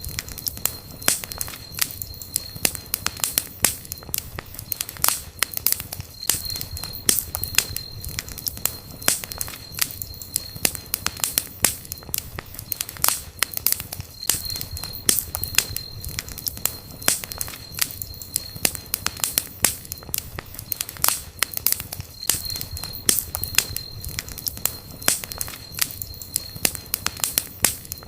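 Campfire burning, with dense, irregular crackling and snapping of the wood over a low steady rumble. A thin high whistle comes and goes every several seconds.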